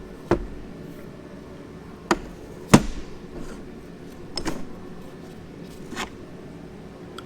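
Five sharp knocks and clanks of engine parts being handled during an engine rebuild, spread over several seconds; the loudest comes a little under three seconds in.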